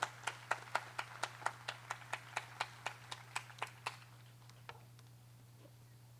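Hand clapping at the end of a song, sharp and evenly paced at about four to five claps a second, stopping about four seconds in with a few scattered claps after.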